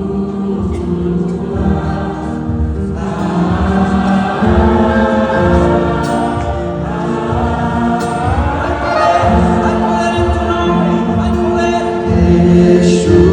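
Christian worship music with a choir singing over sustained accompaniment; the voices swell and grow fuller about three seconds in.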